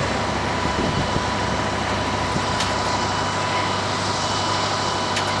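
Steady mechanical drone with a constant high-pitched whine, with two faint clicks partway through.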